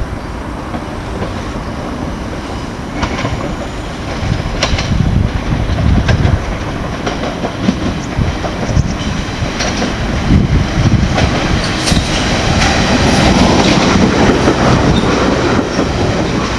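Train rolling along the track, a steady rumble with irregular sharp clacks of the wheels over rail joints, getting a little louder toward the end.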